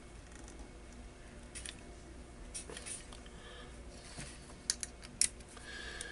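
Faint clicks and taps of small parts being handled and fitted by hand, with a few sharper clicks near the end.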